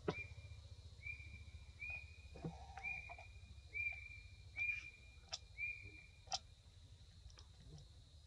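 An animal calling with a high, even whistled note, about seven times in a row at roughly one note per second, falling silent after about six seconds. Faint clicks are scattered among the calls.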